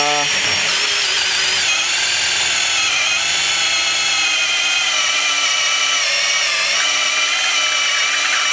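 Ryobi One+ 18 V brushless drill driver spinning up and then running steadily under load, driving a 13 mm bit through aluminium. A high motor whine with a slight waver in pitch.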